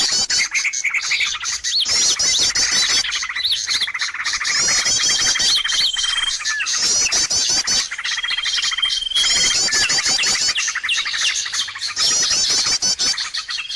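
Bird-lure recording of busy bird calls, played on a loop. A held whistle note is followed by rapid chirping trills, and the sequence repeats about every four seconds over dense background twittering.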